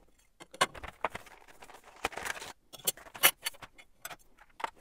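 Irregular clicks and knocks of metal bicycle parts, an aluminium chainring among them, being handled and set down on a tabletop, with a short burst of noise about two seconds in and the loudest knock a little after three seconds.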